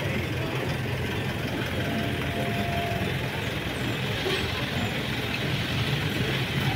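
Pickup truck engines running steadily with a low rumble, under a general street hubbub.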